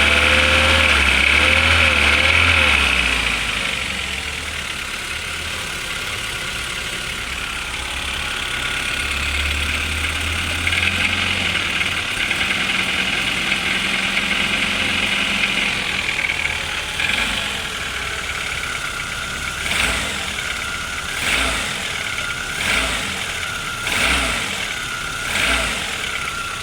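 Audi AAE engine running cold with a knock, the cold-engine knock the owner is showing. The revs rise briefly about five times near the end, roughly every second and a half.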